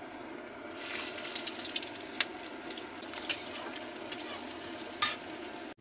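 Sliced onion hitting hot oil in a kadhai and sizzling, starting about a second in, with a few sharp crackles or clicks as it is stirred.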